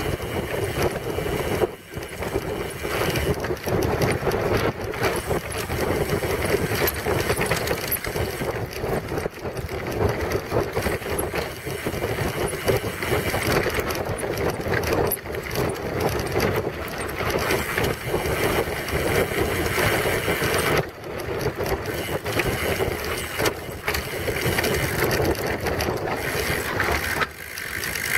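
Wind rushing over the microphone of a camera mounted on a mountain bike's front fork, mixed with tyre noise and rattling from riding fast over rough ground. It is steady and loud, dipping briefly a few times.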